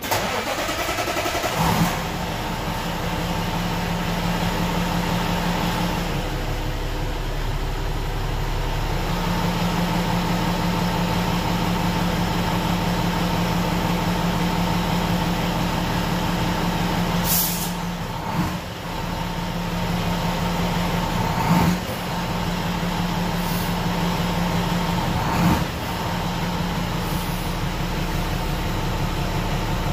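Semi-truck's Cummins ISM diesel engine idling steadily, heard from inside the cab. Its low note drops away for a couple of seconds about six seconds in. A few short, sharp clicks or hisses sound over it in the second half.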